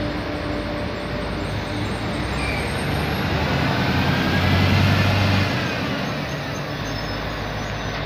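Trenitalia regional electric multiple unit rolling past: steady rumble of wheels on rail, swelling around the middle, with a faint whine rising and falling.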